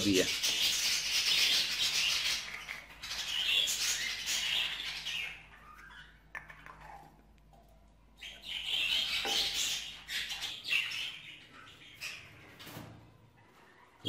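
Pet budgerigars chirping and warbling in bursts, with a quieter stretch about halfway through and a few light clicks.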